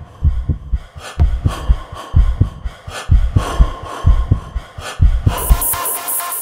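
Electronic background music with a pulsing, heartbeat-like bass-drum beat. About five seconds in the beat drops out and a hissing, pulsing high sweep takes over.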